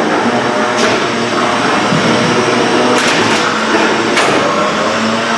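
Beetleweight combat robots' horizontal spinner weapons whirring steadily, with three sharp metal impacts as the robots hit each other: about a second in, at three seconds and just after four seconds.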